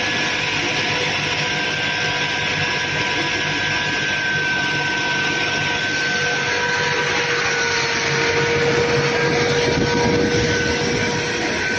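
Cobra-I fire robot's water monitor shooting a high-pressure jet of water: a loud, steady rushing roar with a steady whine on top, swelling a little about eight seconds in.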